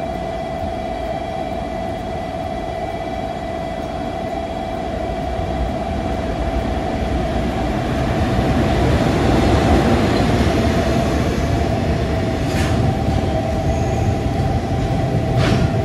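Freight train hauled by a red electric locomotive rumbling in and passing alongside, its rumble building over the first several seconds and staying loud as the container wagons go by. Two sharp knocks come near the end, over a steady hum.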